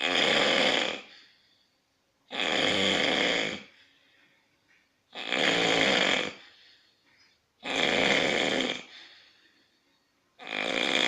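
Loud snoring: five rasping snores in a steady rhythm, about two and a half seconds apart. Each lasts a little over a second and trails off before a short quiet gap.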